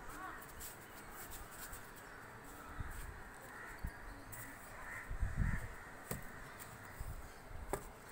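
Birds cawing repeatedly every second or so, with a couple of low thuds.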